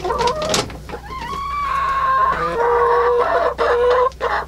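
Laying hens clucking in a coop: a few short clucks, then two long drawn-out calls, each held steady for a second or more.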